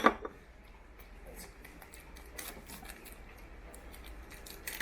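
Faint crinkling and small clicks from a packet of kimchi-flavoured dried squid being handled and opened.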